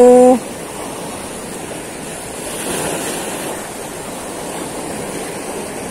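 Sea surf washing against shore rocks: a steady rush of water that swells briefly about three seconds in.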